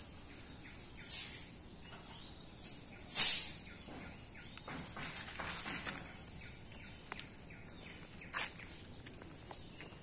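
Footsteps crunching on dry fallen leaves and earth: a handful of irregular steps, the loudest about three seconds in.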